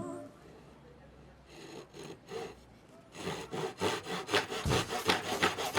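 Back-and-forth strokes of a hand tool on wood, faint at first, then steady and rhythmic at about three or four strokes a second from about halfway in.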